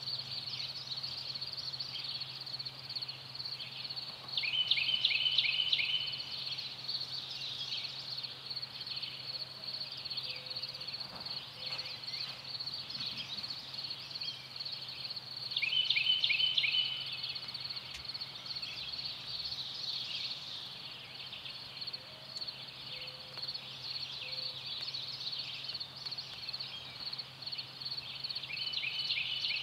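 A songbird sings a short phrase of rapid notes ending in a held note, three times about twelve seconds apart, over a steady high-pitched chorus of outdoor ambience.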